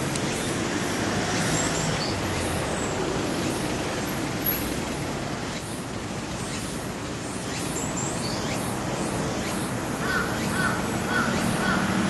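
Steady outdoor noise of traffic or machinery, with crows cawing now and then. Near the end a quick run of repeated rising-and-falling tones starts.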